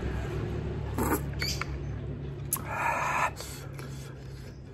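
Mouth sounds of someone eating the last spoonful of instant noodles: chewing with a few wet clicks and smacks, and a short breathy noise about three seconds in.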